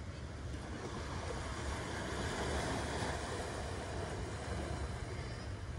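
Small waves washing up on a sandy beach: the surf swells to a peak about halfway through, then eases off. Under it runs a steady low rumble of wind on the microphone.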